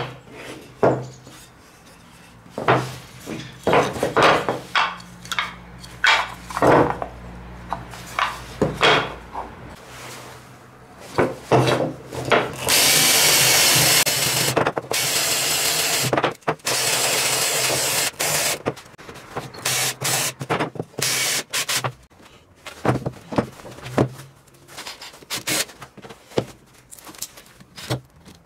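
Wooden knocks and clatter as a small wooden case is handled on a workbench. Partway through, a cordless drill runs a sanding attachment inside the case's round holes for about six seconds, stopping briefly once. More knocks follow.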